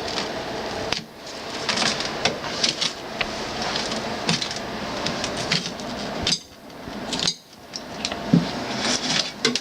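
Irregular metal clicks, clanks and knocks from a scrapped water cooler being taken apart by hand.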